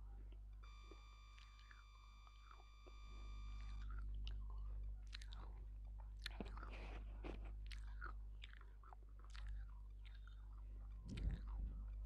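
Close-miked chewing and crunching of edible clay: scattered small crackles and crunches, then a louder bite into a thick clay bar near the end. A steady high tone sounds for about three seconds near the start, over a low constant hum.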